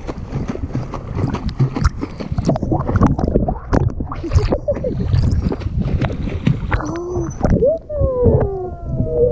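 Water splashing and churning as a dolphin swims past at the surface beside a waterproof camera held at the waterline, the sound going muffled as the camera dips under. Near the end, underwater, bubbles gurgle and a few falling whistle-like tones begin.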